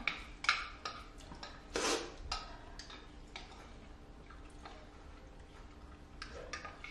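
Chopsticks and a spoon clicking and scraping against ceramic bowls as noodles are eaten: scattered light clinks through the first three and a half seconds, one louder, longer sound about two seconds in, and a few more clinks near the end.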